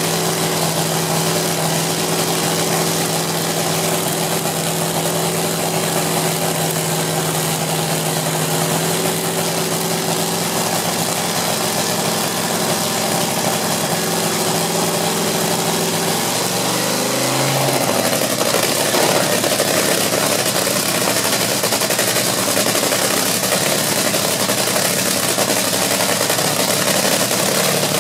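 Rebuilt dragster engine running on its first fire-up, a steady loud idle. About two-thirds of the way through, its note wavers and it then runs a little louder and rougher.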